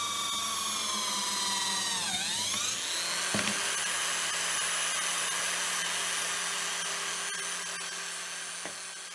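Corded electric hand drill mounted in a drill-press stand, its motor whining. The pitch sags as the bit cuts into a wooden board, dips sharply about two seconds in, then climbs back and holds steady as the drill runs free. A single knock comes about three and a half seconds in, and the whine eases off near the end.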